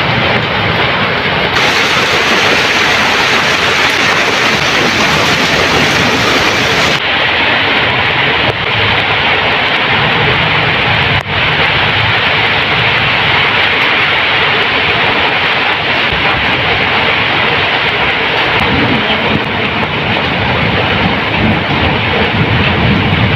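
Cyclone storm wind: a loud, steady rush through trees, with gusts buffeting the microphone in low rumbling swells.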